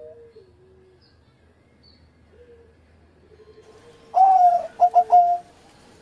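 Zebra dove (perkutut) cooing: a low note falls and trails off at the start, then about four seconds in comes a loud phrase of several quick coos lasting just over a second.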